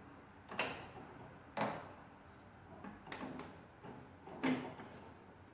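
About four short knocks and scrapes as the knobs on an old tabletop tube radio are worked loose and pulled off their shafts.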